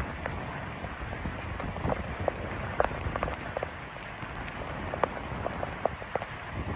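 Heavy rain falling steadily, with scattered drops ticking sharply close by.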